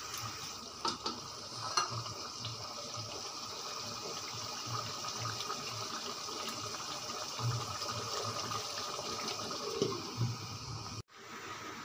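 Pot of mutton, potato and pea curry simmering on low heat, a steady watery bubbling. A few light clinks come through it, and near the end a glass lid is set on the pot.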